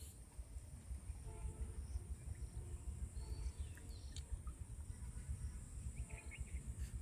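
Rural outdoor ambience: a steady high insect drone over a low, uneven rumble, with a few faint bird chirps.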